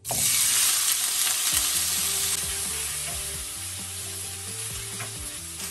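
Cubes of tofu dropped into hot oil in a non-stick wok, sizzling at once and frying steadily while a wooden spatula stirs them. The sizzle starts suddenly and is loudest for the first couple of seconds, then settles a little lower.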